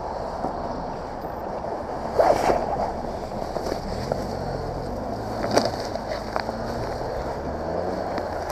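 Vehicle engine idling with a steady rumble, with a few sharp knocks and clicks of handling, the loudest about two seconds in and again about halfway through.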